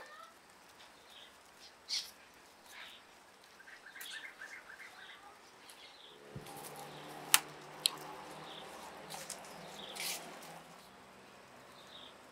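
Small birds chirping on and off in short high calls, with a quick warbling run around the fourth second. About six seconds in, a low steady hum comes in and fades out near the end, and two sharp clicks come just after it starts.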